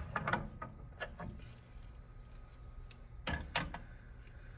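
Metal dissecting instruments clicking and knocking as they are handled and set down on a plastic cutting board: a sharp knock at the start, a few more in the first second and a couple more about three and a half seconds in.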